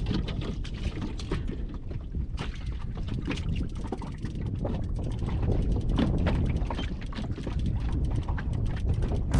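Wind buffeting the microphone over water slapping and splashing against a small boat's hull, with many short irregular splashes and knocks.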